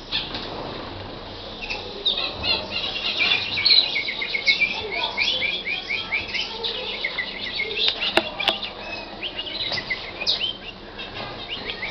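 Canary singing: fast trilled phrases, each a rapid run of the same high chirp repeated, one series after another. Two sharp clicks about eight seconds in.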